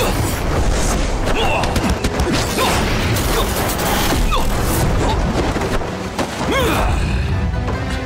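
Layered sound effects for a martial-arts fantasy fight: a deep continuous rumble with repeated booms, hits and whooshes, and a few short cries from the fighters.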